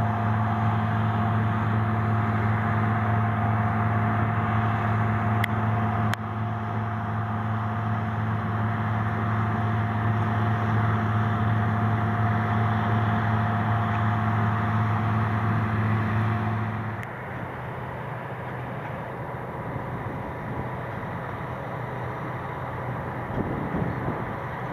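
Heavy farm machinery working a harvest field: a diesel engine drone with a steady hum and a higher whine. About seventeen seconds in it falls away to a fainter rumble.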